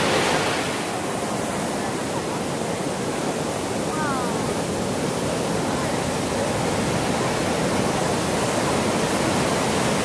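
Large ocean waves breaking and white water washing up the beach: a steady, unbroken rush of surf.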